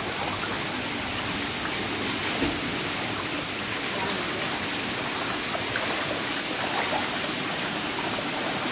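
Water rushing and splashing steadily in a hatchery holding tank crowded with carp.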